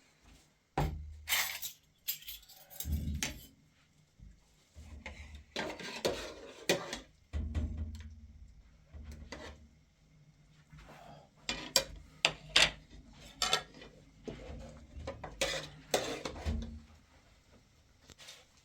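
Dishes, pots and cutlery being handled: irregular clinks and clatters with a few dull knocks, the sharpest clinks about twelve seconds in.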